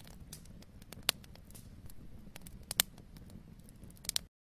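Faint room tone with a low hum, broken by scattered small clicks and taps, then cut off to silence near the end.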